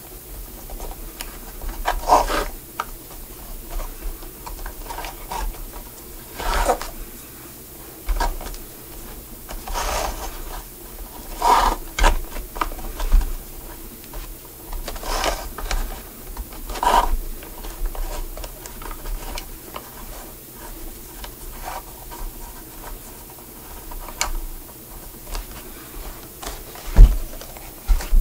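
Leather shoe being rubbed by hand in separate slow strokes, one every few seconds, with faint handling knocks between them.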